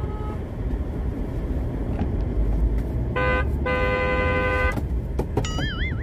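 Car horn played back through a portable speaker hidden on the back seat: a short honk about three seconds in, then a longer honk of about a second, over the steady road rumble inside the moving car. Near the end a wavering, warbling high tone begins.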